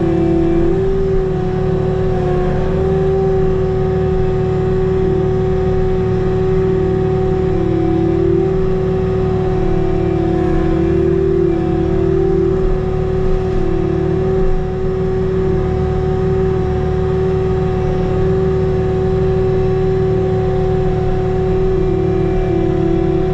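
Bobcat T66 compact track loader's diesel engine running steadily at working throttle, with a strong whine whose pitch dips a little now and then as the machine takes load.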